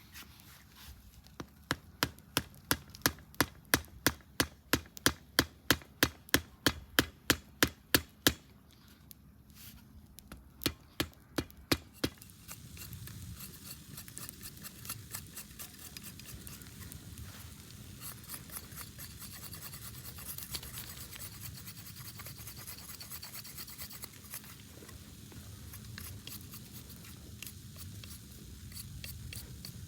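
Quick, even chopping strokes on a cutting board, about two to three a second, stopping about eight seconds in, with a few more strokes a little later. Then a steady crackling.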